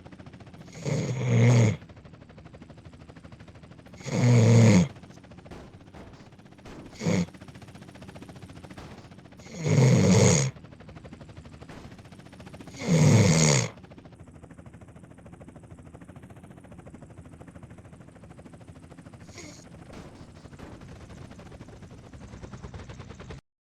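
Snoring: four loud snores roughly every three seconds, each lasting well under a second, with a shorter snore between the second and third. After about 14 seconds the snoring stops and only a faint steady background remains.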